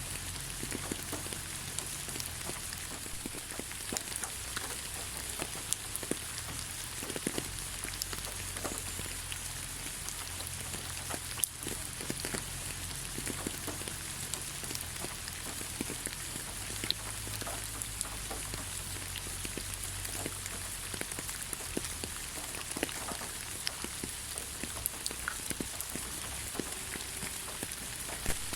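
Steady rain falling on the ground: an even hiss with many separate drop impacts ticking through it.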